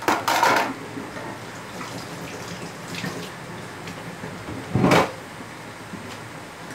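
Kitchen clatter: a quick run of knocks just at the start and one heavier clunk about five seconds in, over a steady hiss.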